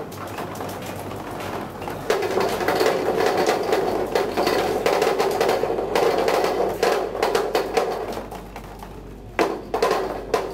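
A ball rolling down the spiral chute of a Rube Goldberg machine: a steady rolling rumble with rapid clattering clicks that starts about two seconds in and dies away near eight seconds, then a few sharp knocks near the end.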